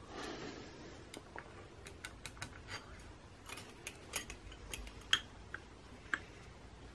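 Scattered light metallic clicks and taps as a long through-bolt is fed through an electric trolling motor's housing and worked into its thread, the sharpest about four and five seconds in.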